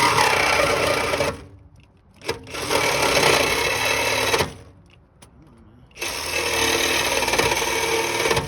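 Reciprocating saw cutting into a car's exhaust pipe at the muffler, in three bursts of about two seconds each with short pauses between them.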